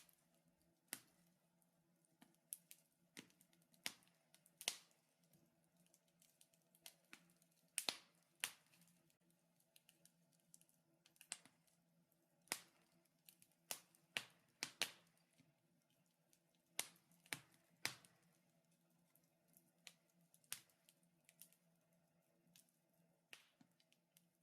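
Wood fire crackling in a fireplace: irregular sharp pops and snaps, a few a second at their busiest and louder clusters in the middle.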